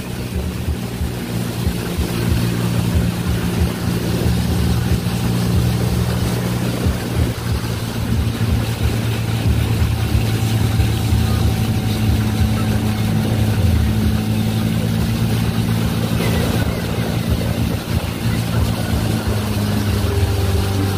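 Boat engine running steadily at cruising speed, a constant low drone, with water rushing along the hull.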